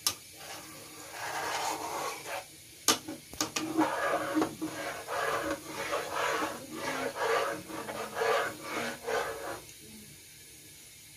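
A spatula scraping and stirring thick mung beans in coconut milk around a nonstick pan, about two strokes a second. A couple of sharp knocks of the spatula on the pan come about three seconds in, and the stirring stops near the end.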